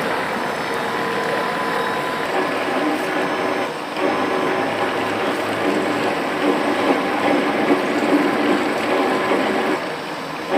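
Metal-cutting circular saw machine running with a steady mechanical noise that dips briefly about four seconds in.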